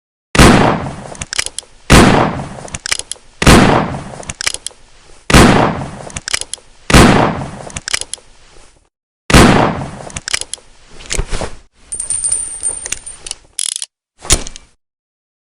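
Revolver firing six shots, roughly one and a half to two seconds apart, each a sharp crack with a decaying tail. This is followed by a string of lighter metallic clicks and a short ratcheting rattle from the gun's mechanism.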